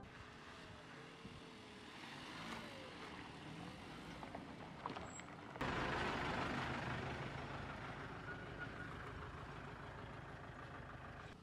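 Vehicles on a road: a car driving by, then, after a sudden cut about halfway through, a fire truck passing close with its engine running and tyre noise, growing fainter as it pulls away.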